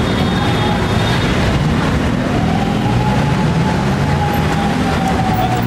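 Loud, steady street traffic at a busy intersection: engines of jeepneys and cars running, with a faint wavering whine from about two seconds in.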